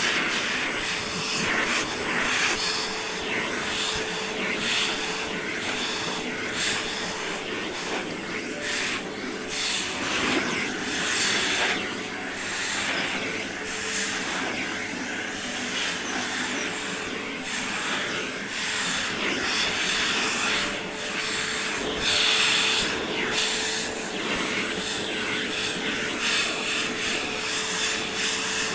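Vacuum cleaner running with a steady motor hum and rushing suction as its hose nozzle is drawn through a Leonberger's thick coat. The airflow noise swells and dips again and again as the tool presses into the fur and lifts off.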